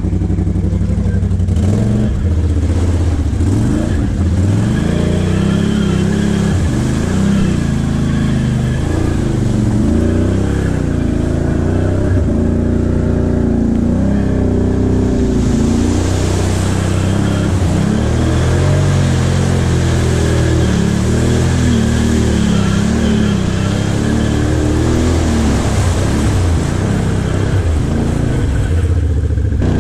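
Can-Am Outlander XMR ATV's V-twin engine revving up and down as it drives through mud-filled ruts, with a rushing hiss over the middle stretch.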